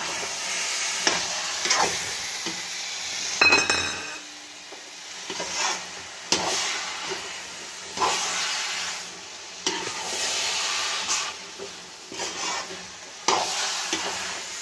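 A spatula stirring and scraping carrot halwa and mawa around a metal kadhai in repeated strokes about once a second, over a light sizzle of the thick mixture cooking in ghee. A ringing metal clink of spatula on pan comes about three and a half seconds in.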